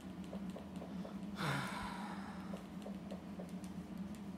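A person sighing once, a short breathy exhale about a second and a half in, over a steady low room hum with faint regular ticking.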